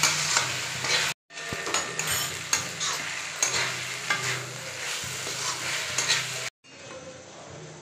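Metal spatula scraping and tossing chow mein noodles around a metal kadhai as they sizzle and fry, with many short scrapes against the pan. The sound cuts out to silence twice, about a second in and again near the end.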